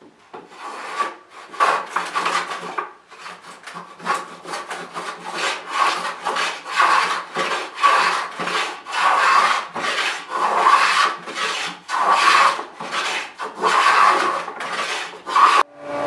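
A rabbet plane (Simshobel) cutting along a rabbet in softwood pallet board, a quick run of short rasping strokes at about two a second, shaving down a rabbet that the table saw cut slightly off. The strokes stop suddenly near the end, as a small table saw's motor is heard running.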